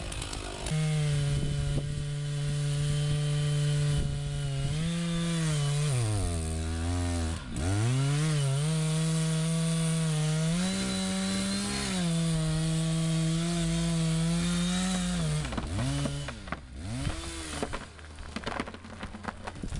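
Large two-stroke chainsaw cutting through a thick tree trunk at full throttle. Its pitch sags under load and recovers about halfway through. About three-quarters of the way in the engine drops off, and irregular sharp cracks follow as the cut trunk begins to lean.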